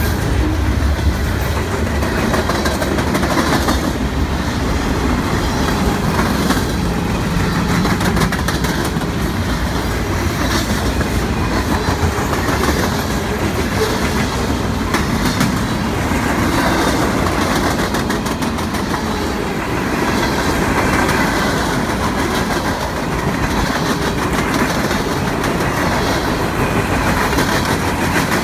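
Freight cars of a CSX mixed freight train rolling steadily past close by: a constant rumble and rattle of steel wheels on rail, with frequent sharp clicks and knocks as the wheels pass.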